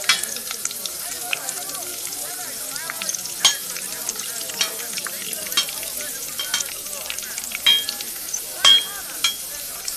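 Food sizzling steadily as it fries, overlaid with sharp clinks of glasses and cutlery about once a second, each ringing briefly.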